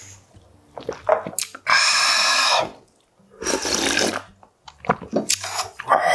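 Slurping cold naengmyeon broth straight from the bowl: two long slurps, the first about two seconds in and the second just after a brief pause, with short mouth and chewing noises around them and another slurp starting near the end.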